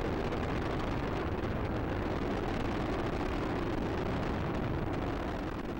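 Roar of Space Shuttle Discovery's two solid rocket boosters and three main engines during ascent, heard from the ground: a steady, deep, rough rumble that eases slightly near the end.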